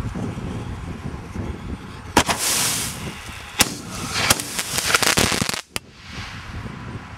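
A consumer artillery shell loaded upside down in a fiberglass mortar fires: a sharp bang from the tube with a brief rushing hiss, then a string of sharp reports over about three seconds as the shell bursts low. It behaves almost like a double-shot mine. Wind noise on the microphone runs underneath.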